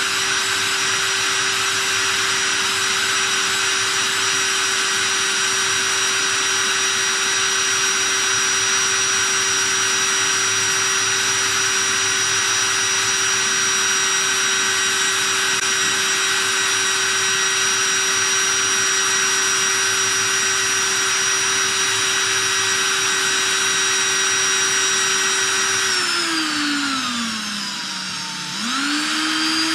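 DeWalt cordless drill motor running steadily at speed, spinning a brass cartridge case in a shell holder while it is polished with Nevr-Dull wadding. About 26 seconds in the motor slows, its pitch falling, then speeds back up near the end.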